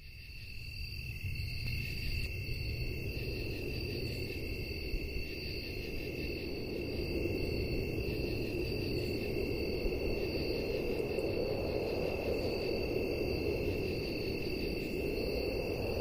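Atmospheric track intro: a steady high cricket-like chirring over a low rumbling noise, fading in from silence over the first second or so, with the rumble swelling towards the middle.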